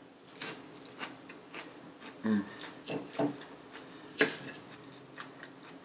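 Gold flatware fork clicking and scraping against a plate while spearing salad, with chewing of lettuce between. Scattered short clinks, the sharpest about four seconds in.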